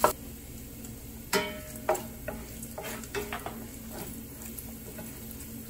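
Diced bacon sizzling in a stainless steel sauté pan as it renders its fat, stirred and scraped with a wooden spatula that knocks against the pan several times between about one and three and a half seconds in.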